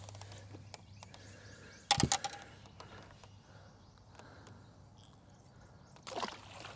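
Small fish landed by hand and thrown back: a short, loud splash of water about two seconds in as it comes out of the river, light handling clicks, and a second splash about six seconds in as it is tossed back.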